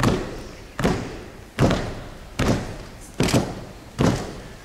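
Group of haka performers slapping their bodies in unison: six sharp slaps, a little under a second apart, each echoing in the large hall.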